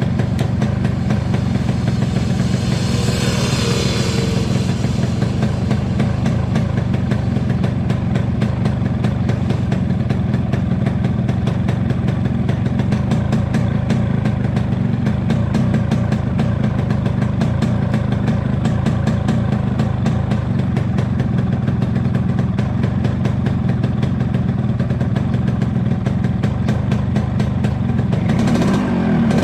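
Yamaha RX-King's two-stroke single-cylinder engine idling steadily while its carburettor is being set so it doesn't run too rich. It revs up briefly near the end.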